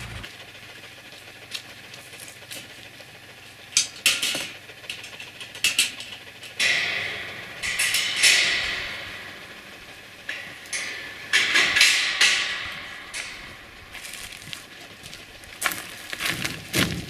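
Intermittent clanks, rattles and scrapes of chores at a wire dog kennel: metal kennel panels, the gate and a plastic bucket being handled, in separate bursts with quieter gaps between.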